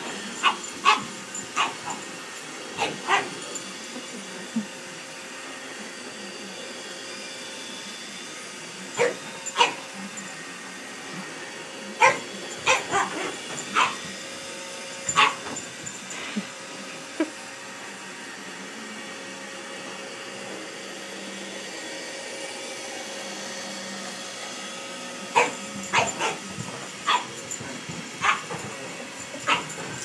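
A pug barking in short, sharp barks at a running Roomba robot vacuum, whose steady motor hum carries on underneath. The barks come in four spells, with a long stretch of only the vacuum's hum a little past the middle.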